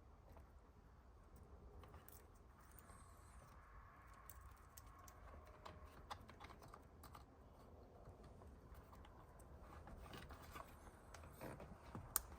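Near silence with faint, scattered clicks and taps of small plastic parts and connectors being handled and fitted.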